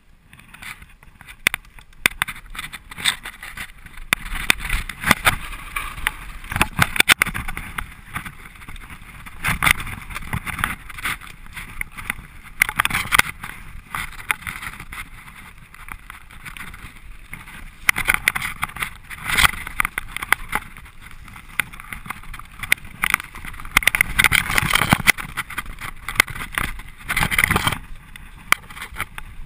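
Mountain bike rolling fast down a rough dirt and stone singletrack: tyres crunching over the ground, with frequent sharp knocks and rattles from the bike over bumps.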